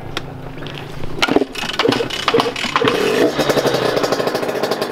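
Small youth motocross bike being kick-started: the engine catches about a second in with a few ragged blips, then settles into running with a fast, even beat from about three seconds in.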